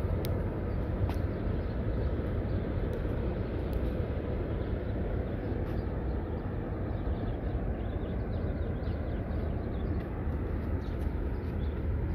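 Steady outdoor background noise on an airport ramp: a low rumble with a faint hiss over it and a few faint ticks, no engine running nearby.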